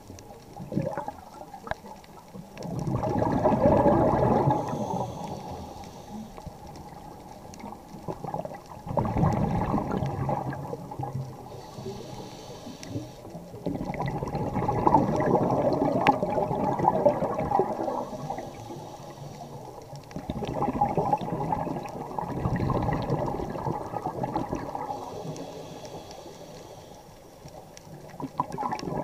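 Scuba diver breathing through a regulator underwater. Each breath is a faint hiss on the inhale followed by a long, loud rush of exhaled bubbles, about four breaths, one roughly every six seconds.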